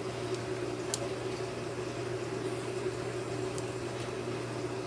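A steady low hum, with a couple of faint clicks as small servo parts are handled.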